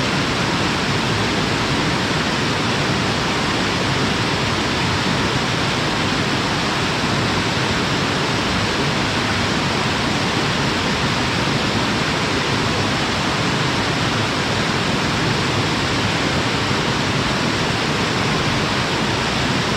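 Mountain-stream waterfall pouring steadily, a dense even rush of falling water with no breaks.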